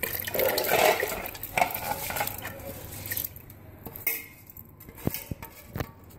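Soaked rice tipped from a metal bowl into a pot of hot water, the bowl scraping and clinking against the pot's rim as a hand scrapes the grains out. It is busiest in the first three seconds, then a few scattered clinks.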